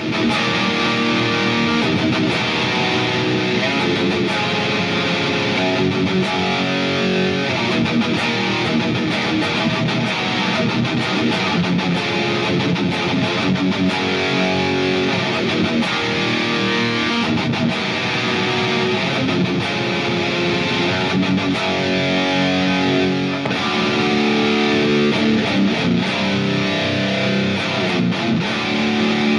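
Electric guitar played through a Line 6 POD HD Pro amp modeler, power amp and 2x12 speaker cabinet, with a distorted melodic death metal tone. It plays continuous held chords and melodic lines, changing every second or two, heard straight through the camera mic.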